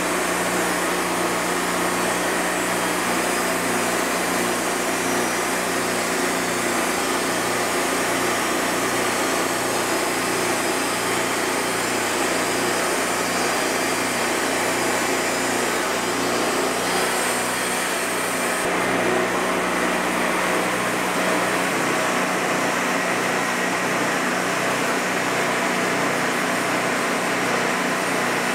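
Wood-Mizer LT40 Wide bandsaw sawmill running steadily under load, its engine and band blade sawing through a monkey puzzle log. It makes a loud, even mechanical hum with a faint regular pulse. About two-thirds of the way through, the sound shifts and loses some of its high hiss.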